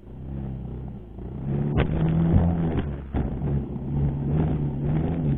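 Racal MC 125 dirt bike's 125 cc engine running under throttle while riding, getting louder about a second and a half in. A few sharp knocks cut across the engine sound.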